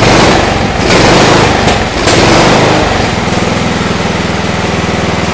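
Old Toro riding lawn mower engine running after being revived, louder and rougher for the first three seconds, then settling into a steady, even run.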